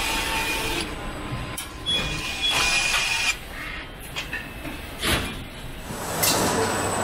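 Car assembly-line machinery noise: a steady mechanical whirr, with a power tool whining for about a second and a half a couple of seconds in, and two short rushing surges near the end.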